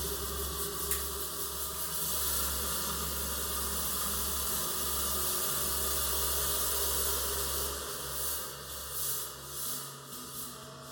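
Nonlinear Labs C15 synthesizer playing an atmospheric patch: a steady airy hiss over a low sustained drone, swelling and ebbing in a few waves near the end.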